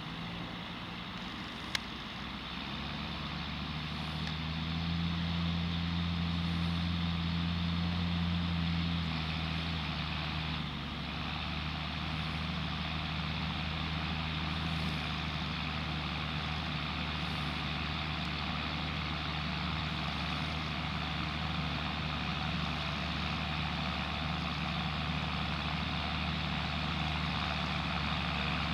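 John Deere tractor's diesel engine running steadily under load, growing louder a few seconds in. A single sharp click sounds a little under two seconds in.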